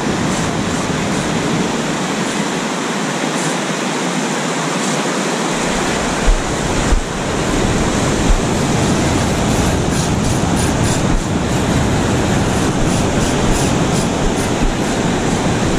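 Loud, steady rushing of surf breaking and washing up a sandy beach, with wind on the microphone. A deeper rumble comes in about halfway through, with a few low thumps soon after.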